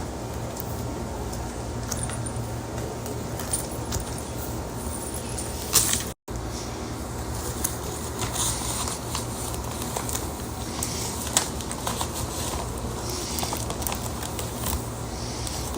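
Objects being handled during cleaning: scattered clicks, light rattles and rustling over a steady low hum. The sound cuts out completely for a moment about six seconds in.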